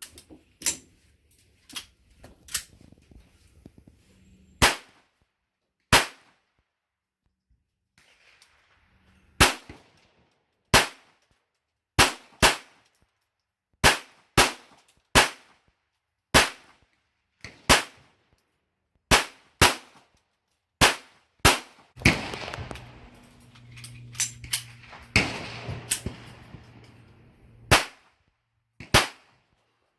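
Smith & Wesson Victory .22LR pistol with a ported muzzle brake being fired, a string of sharp cracks, some in quick pairs and some a few seconds apart. A rushing noise with a low hum comes in behind the shots a little over two thirds of the way in, for about five seconds.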